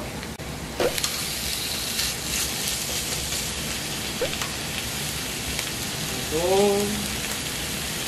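Pork belly and eel sizzling on a hot griddle: a steady, rain-like hiss of frying fat that jumps up about a second in as raw pork belly is laid on. A short hummed voice sound comes near the end.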